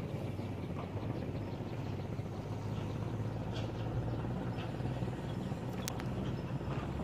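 A steady low engine drone, with one sharp click about six seconds in.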